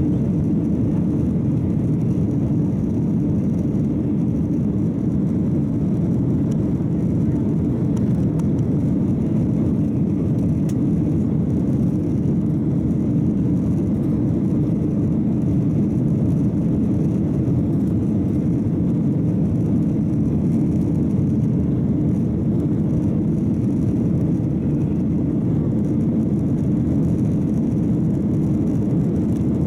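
Steady cabin drone of a Boeing 737-800 in the climb after takeoff: its CFM56-7B turbofan engines and the rush of air over the fuselage, heard from inside the cabin as an even low noise.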